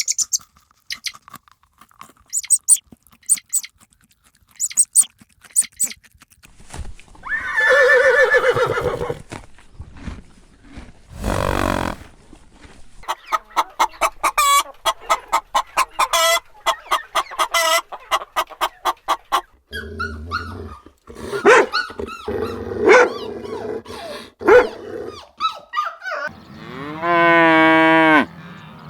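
A run of different farm animal sounds: scattered clicks, a longer call, about two short calls a second for several seconds, then a cow's long moo near the end that drops in pitch as it finishes.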